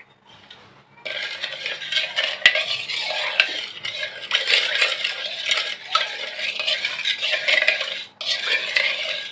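Metal spoon stirring warm milk with sugar, salt and dry yeast in a plastic mixing bowl, scraping and clinking against the bowl. It starts about a second in and breaks off briefly near the end.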